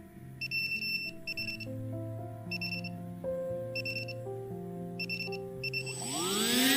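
Soft background music with light, regularly repeating chime-like notes. Near the end an RC plane's electric motor spins up, its whine rising steeply in pitch and growing louder: the motor climbing to its INAV auto-launch throttle.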